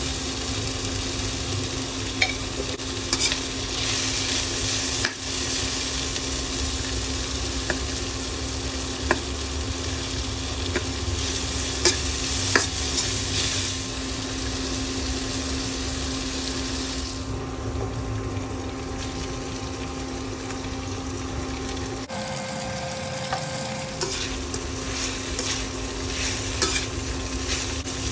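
Vegetables sizzling as they stir-fry in oil in a stainless steel wok, with a slotted metal spatula scraping and clicking against the pan. A steady low hum runs underneath.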